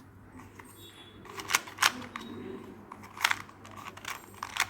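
A 2x2 Rubik's cube being turned by hand: a few sharp plastic clicks as its layers are twisted and snap into place.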